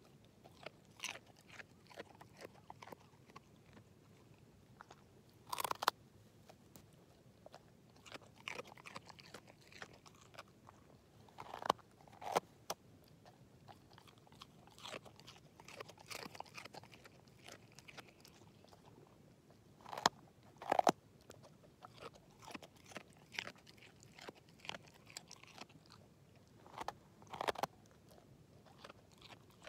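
An English Setter crunching and chewing a raw carrot: irregular crisp crunches with quieter gnawing between, the loudest bites coming every several seconds.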